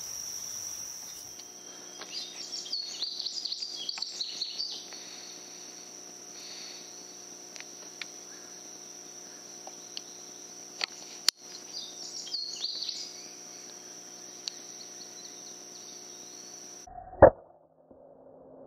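Insects buzzing steadily with birds chirping twice, then near the end a single sharp crack from an FX Impact .22 PCP air rifle firing a slug at a squirrel.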